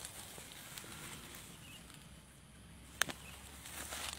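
Quiet rustling of weeds and grass being handled by hand, with one sharp click about three seconds in; no cutter engine is running.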